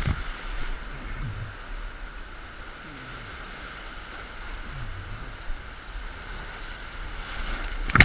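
Whitewater rapids rushing steadily around an inflatable raft. A wave splashes over the bow at the start, and a louder wave crashes over it near the end.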